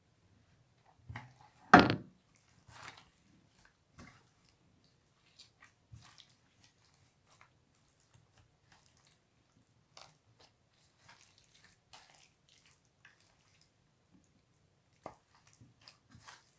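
Slime being handled in a container: scattered small wet squishes and clicks, with one sharp knock about two seconds in.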